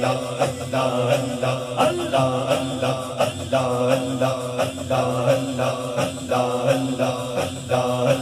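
A man's voice chanting a hamd, a Punjabi devotional hymn in praise of Allah, in long sung phrases over a steady low drone.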